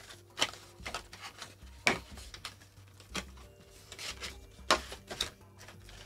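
Cardboard packaging being opened and handled: scattered light taps, knocks and scrapes of cardboard, with a few sharper clicks along the way.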